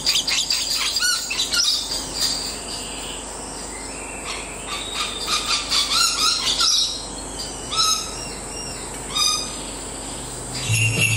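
Scaly-breasted lorikeet chirping and calling in quick runs of short, high notes that rise and fall, with pauses between the runs. Near the end, music with jingle bells starts.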